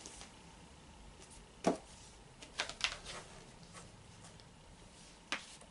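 A few light knocks and taps of a cardboard lipstick box being handled and slid open: one about a second and a half in, a pair around two and a half to three seconds, and one more near the end.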